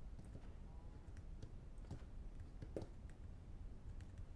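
Faint, scattered clicks of a computer mouse and keyboard keystrokes, picked up by a headset microphone, over a low steady hum.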